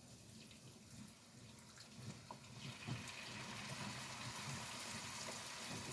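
Tequila being poured from the bottle into a cast iron pan of sauce, a faint steady trickle of liquid that starts about two and a half seconds in and runs on.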